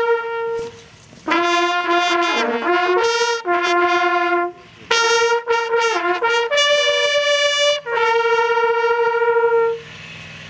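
Hunting horns, brass natural horns, blowing a ceremonial signal over the laid-out game at the close of a driven hunt: a tune of held notes that step up and down with short breaks, ending on a long held note near the end.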